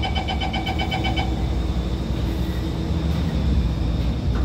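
Rapid door-closing warning beeps, a quick run of short pips for about the first second, over the steady low hum of a stationary Alstom Movia R151 metro train. A clunk near the end as the doors start to slide shut.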